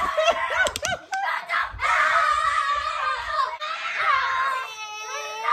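Young children's high-pitched vocal shrieks and cries, the pitch sliding up and down, ending in one long gliding, wavering note near the end.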